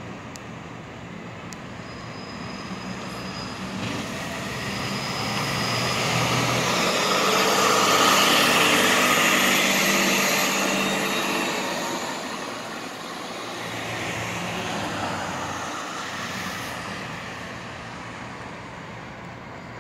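Articulated city bus pulling out and passing close by, its engine and tyres growing louder to a peak about eight seconds in, with a whine over the road noise, then fading as it drives away. Other road traffic passes, more quietly, around fifteen seconds in.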